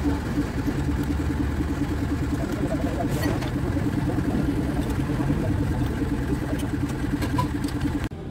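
An engine idling steadily with an even, rapid pulse. It stops abruptly near the end.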